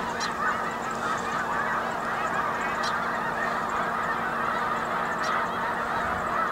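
A large flock of snow geese calling together: many overlapping honks in a steady, unbroken chorus.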